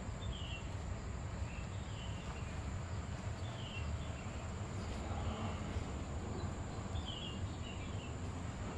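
Outdoor ambience: a low steady rumble under a thin, steady high tone, with short falling chirps every second or two.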